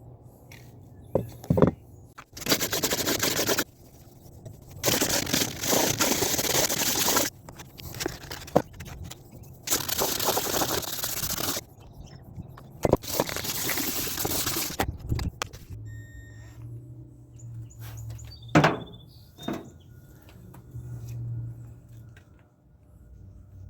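Hand work on an antique hatchet under restoration: four bursts of harsh hissing, scraping noise, each one to two and a half seconds long, with a few sharp clicks and knocks between them.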